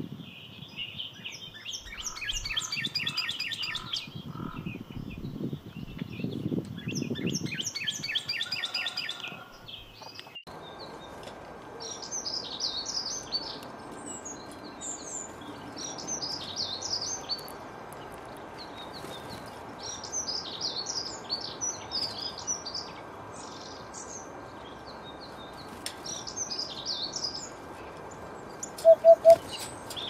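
Caged canaries chirping and twittering in short trilling bursts. About a third of the way in, a faint steady hum starts underneath. Near the end come three short, loud, low beeps.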